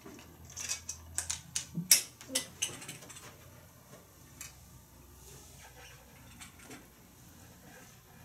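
Clicks and clattering of an underwater camera rig's tray, grip and light mount being handled and fitted, a quick run of knocks with the loudest about two seconds in, then only a few faint ticks.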